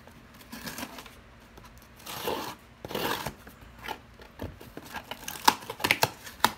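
A package being opened by hand: two short rips of packaging about two and three seconds in, then a quick run of sharp clicks and taps near the end as the contents are handled.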